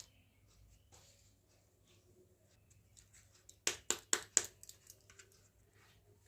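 Small plastic toy kitchen pieces being handled, with light scattered clicks and taps, then a quick run of four louder clacks a little past the middle.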